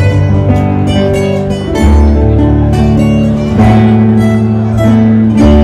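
Live band playing an instrumental passage of Rio Grande do Sul regional music: plucked acoustic guitars over sustained bass and keyboard notes, without singing.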